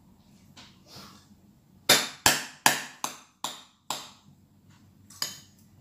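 Metal spoon knocking against a ceramic bowl while mashing avocado: a run of sharp clinks, about two to three a second, starting about two seconds in, with a short pause near the end before they resume.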